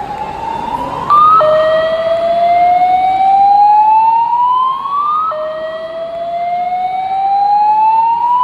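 Building fire alarm sounding a slow-whoop evacuation tone: a loud rising sweep that climbs for about four seconds, drops back and climbs again. The first sweep ends about a second in, and two full sweeps follow.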